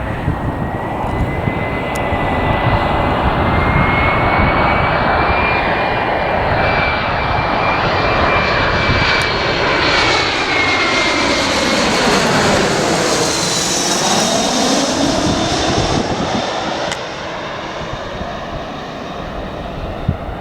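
An airliner's engines passing close by as it comes in to land: a steady whine over a broad rush that falls in pitch as the aircraft goes past, about twelve seconds in. The sound drops away a few seconds later.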